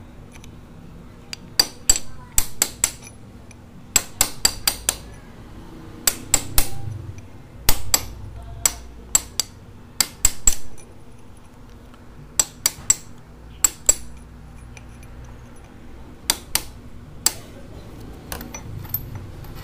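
Hammer striking a steel punch set against the slotted lower lock nut of a motorcycle steering head, driving the nut counterclockwise to loosen it. Sharp metallic taps come in quick groups of two to five, with short pauses between groups.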